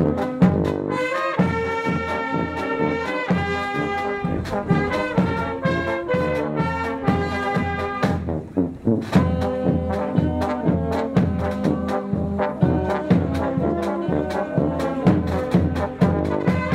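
Brass band playing a march: horns and saxophones over a steady drum beat, with a brief drop about eight seconds in.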